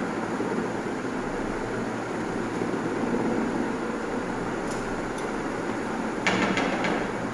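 Steady machine-like background noise. A short voice-like sound comes near the end.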